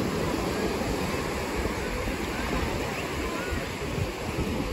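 Ocean surf washing on the beach, with wind buffeting the microphone in low rumbling gusts and faint distant voices of beachgoers.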